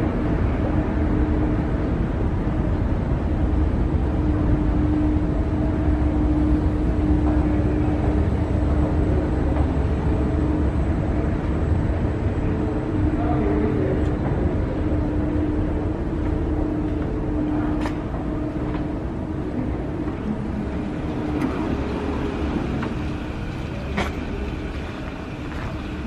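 Steady mechanical hum of escalator machinery, with one constant tone over a low rumble, easing off in the last few seconds; a few sharp clicks near the end.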